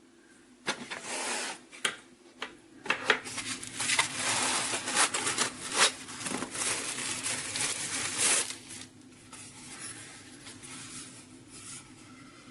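Close rustling and rubbing, as of things being handled, with several sharp clicks, over a low steady hum; it dies down to faint rustling about eight and a half seconds in.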